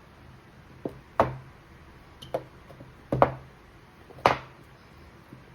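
Boxed product packaging being handled and opened: a handful of sharp knocks and taps a second or so apart, the loudest a little past the middle.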